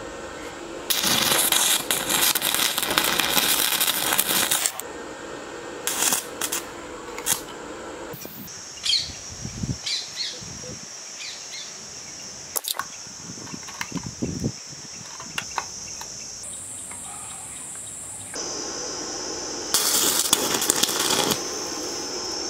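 Stick (arc) welding crackle in two long bursts, about a second in and again near the end. Between them come scattered short metallic clicks and knocks of steel parts and a bicycle chain being handled.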